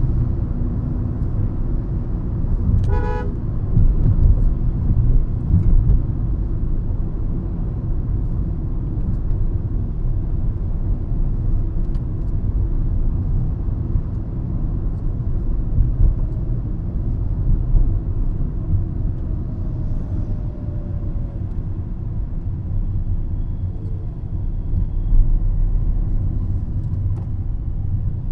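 Hyundai i20 hatchback on the move: a steady low rumble of engine and tyres, with one short car horn beep about three seconds in.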